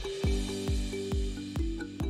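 Background music with a steady beat of about two low thumps a second under held notes, with a soft hiss over the first second.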